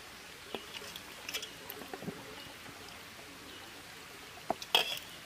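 Curry gravy poured from a metal ladle onto rice on a leaf plate: faint, soft pouring with a few light ticks, and a short, sharper clatter near the end.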